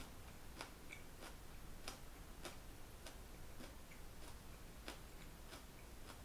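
Faint regular ticking, about three ticks every two seconds, over a low steady hum in a quiet room.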